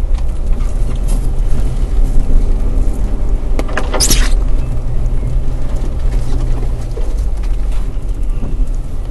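Off-road vehicle's engine running low and steady, heard from inside the cab as it crawls over a rough dirt trail. A short, bright scraping hiss comes about four seconds in.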